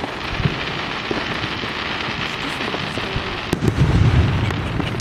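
Aerial fireworks shells bursting overhead, their stars crackling in a dense, continuous run of sharp pops. A louder, deeper burst comes about three and a half seconds in.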